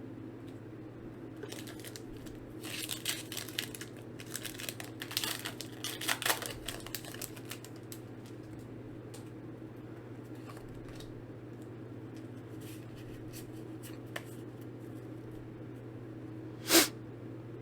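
Foil Pokémon booster pack wrapper being torn open and crinkled: a flurry of short crackles for a few seconds, then a steady low hum, with one short sharp sound near the end.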